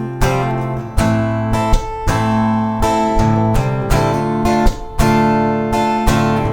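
Acoustic guitar strumming chords in a steady rhythm, the instrumental intro before the vocals come in.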